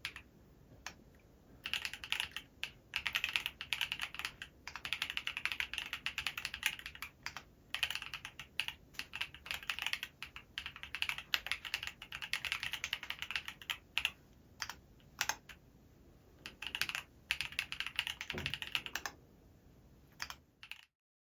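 Typing on a Cary Works Revo-happy HHKB-layout mechanical keyboard built with Sillyworks Hyacinth V2 switches, a POM plate and SW Foundation keycaps. Runs of fast keystrokes come in bursts with short pauses, and a few strokes land with a deeper thud. The sound stops abruptly near the end.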